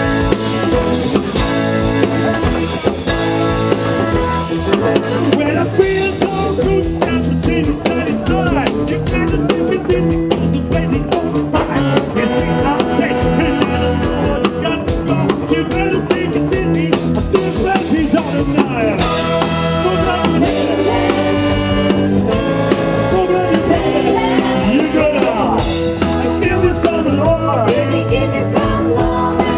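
A live band playing amplified music, with a drum kit keeping a steady beat under several singers and a horn section.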